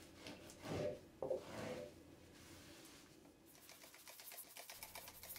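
Faint scrubbing of a shower floor seam with a small nylon-bristled brush: a fast run of rasping strokes over the second half, after a couple of brief louder noises about a second in.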